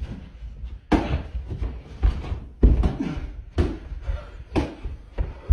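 A series of loud thumps and knocks about once a second from a person running, lunging and slapping a balloon to keep it in the air.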